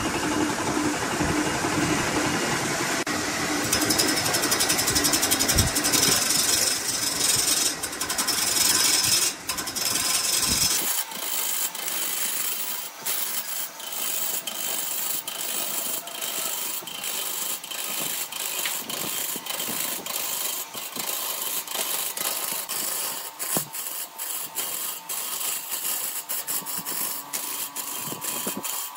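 Wood lathe running while a turning tool cuts a spinning blank of bamboo chopsticks and epoxy resin: a continuous scraping, shaving noise. About eleven seconds in it changes abruptly to a thinner scrape, crowded with rapid clicks as the tool catches the chopstick ends and the resin.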